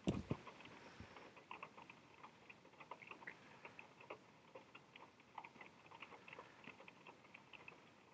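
Faint, irregular clicking and ticking from a dangled wristwatch and its band as a cat bats at it, with a couple of dull knocks right at the start and another about a second in.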